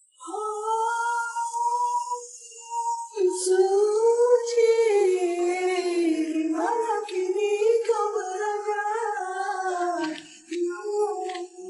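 A woman's voice singing a slow, wordless melody in long held, gliding notes, with a short break about three seconds in and another near the end.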